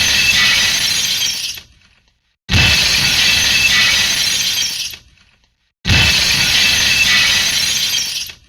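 Glass shattering, repeated: each time a sudden crash with a low thump at the start, then about two seconds of breaking and tinkling shards that fade out. The tail of one crash dies away early on, then two more start about 2.5 and 6 seconds in.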